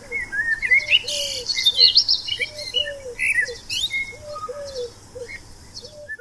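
Birdsong: a low three-note cooing call repeated every couple of seconds, with higher chirps and twitters from songbirds over it. It cuts off suddenly at the end.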